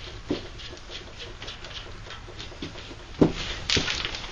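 Scattered light clicks and scrapes of hand work on a disassembled Chevy 327 V8 engine, with a sharper knock about three seconds in and a short scraping rattle near the end.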